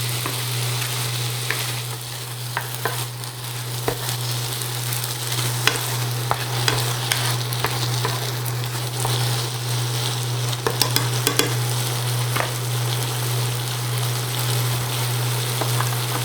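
Black beans and onions sizzling in a hot pan on an induction cooktop, with a utensil clicking against the pan now and then as they are stirred, over a steady low hum.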